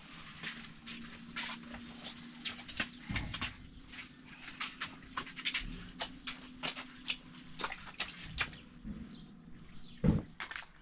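Water dripping and pattering irregularly onto a wet plastic groundsheet in a flooded tent, a scatter of short sharp drips. Two dull thumps break in, the louder one just before the end.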